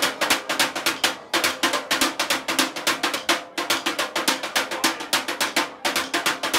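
Junk percussion: drumsticks beating a fast groove on plastic water barrels and metal scrap, with dense rapid strikes over a steady low ring and short breaks about every two seconds.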